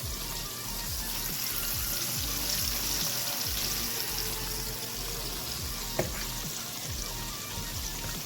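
Flour-coated chicken pieces frying in hot oil in a pot, a steady sizzle throughout. Background music with a low beat runs underneath, and a single sharp click sounds about six seconds in.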